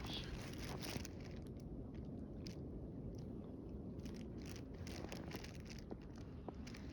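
Snow crunching underfoot in irregular steps, over a steady low rumble.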